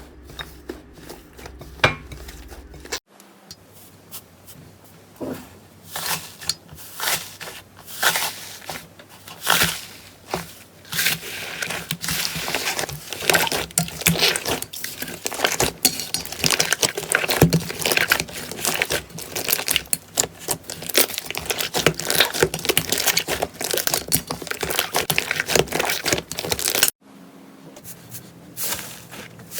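Slime being squeezed and pressed by hand, crackling and popping in many quick small clicks that grow dense and busy from about ten seconds in. The sound changes abruptly about three seconds in and again near the end, as one slime clip gives way to another.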